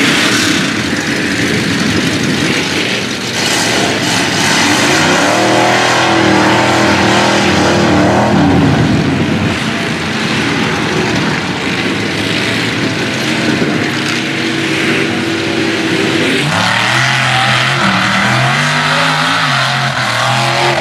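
Lifted mud-bog trucks' engines revving hard as they plow through deep mud. Near the end a different truck's engine revs up and down repeatedly.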